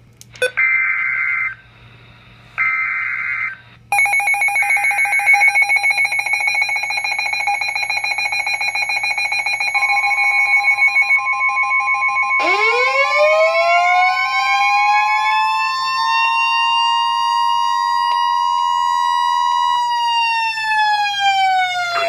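Weather alert radios going off for an Emergency Alert System warning: two short warbling bursts of the SAME data header, then steady pulsing alarm beeps from about four seconds in. About ten seconds in the steady NOAA Weather Radio warning tone joins them. A siren-type alert tone winds up about twelve seconds in, holds, and starts to wind down near the end.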